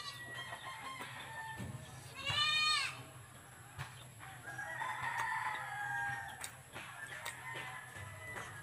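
A rooster crowing: one long crow that rises, holds and falls about five seconds in. It comes after a shorter, louder animal call about two seconds in.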